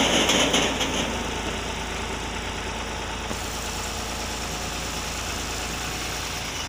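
New Holland 3630 tractor engine running steadily while it powers the infielder's hydraulic lift as the bin tips. Cut sugarcane rustles as it pours into the truck, loudest in the first second.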